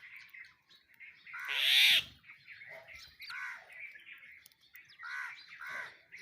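Birds calling: one loud, harsh call from about one and a half to two seconds in, followed by a string of short chirps and calls.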